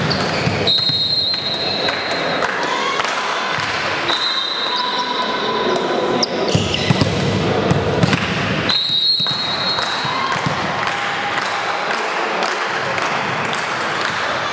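Volleyball court between rallies: a ball bouncing on the gym floor with short sharp knocks, players' voices, and three held high squeals about 1, 4 and 9 seconds in, all in a large echoing hall.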